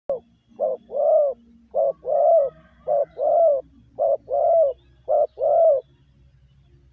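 Spotted dove cooing: a short opening note, then five paired coos, each a short note followed by a longer arched one, about one pair a second, stopping about six seconds in. This is the cooing call used as a lure to draw in wild doves.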